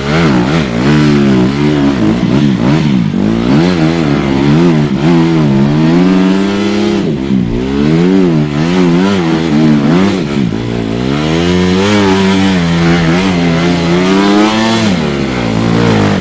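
Enduro dirt bike engine revving up and down over and over as the rider works the throttle. It is pulling hard on a steep, muddy climb, with the rear wheel spinning and flinging mud.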